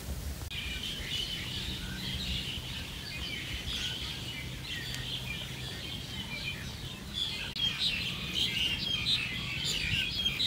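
A flock of birds chirping and calling together in a tree, a dense, continuous chatter of many overlapping calls.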